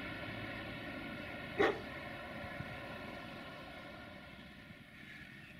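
A distant engine hum made of several steady tones, fading away. One short, sharp dog bark stands out loudest about a second and a half in.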